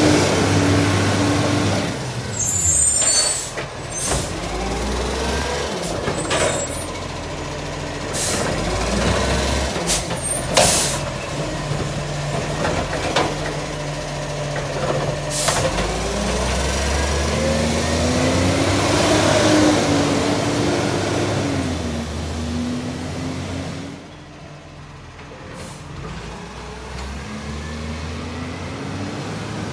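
Side-loading garbage truck working a wheelie bin: the diesel engine revs up and down as the hydraulic arm lifts and tips the bin, with several sharp air-brake hisses. Near the end the engine eases, then picks up again as the truck pulls away.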